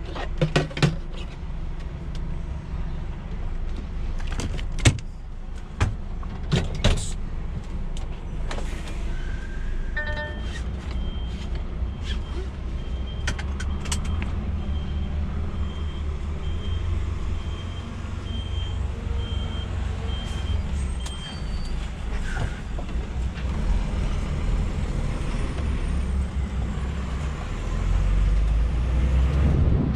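DAF XF 480 diesel engine idling, heard from inside the cab, with a few sharp clicks in the first seconds. From about ten seconds in, a dashboard warning chime beeps a little more than once a second for about eleven seconds, then stops. The engine grows louder near the end.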